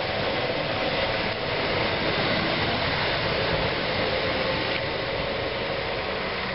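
Class 321 electric multiple unit moving off and drawing away, with steady traction-motor and wheel noise that begins to fade near the end.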